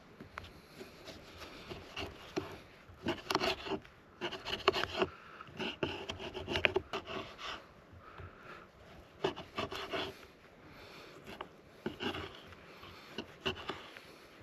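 Repeated scraping and rubbing strokes with small sharp clicks among them, in two bouts: one about three seconds in, and another about nine seconds in.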